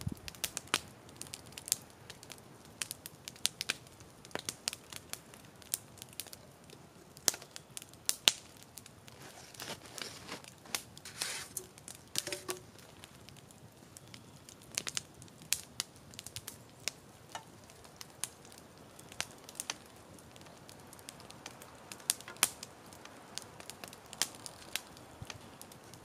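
Wood campfire crackling, with sharp pops at irregular intervals.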